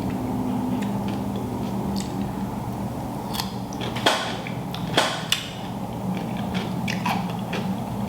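Close-mic eating sounds from a seafood boil mukbang: chewing and mouth smacking with scattered small clicks, and two sharper clicks about four and five seconds in.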